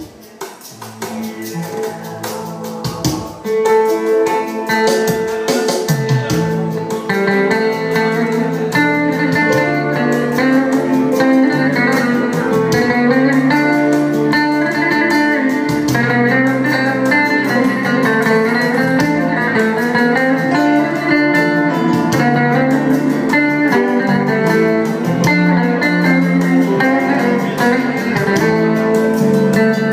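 Amplified instrumental music led by a plucked string instrument playing a melody. It starts softly and swells to full, steady loudness about three seconds in.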